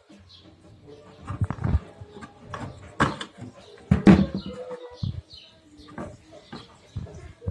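Scattered clicks and knocks from hands handling the vacuum cleaner's switch, wiring and casing parts, with a few short high chirps in between.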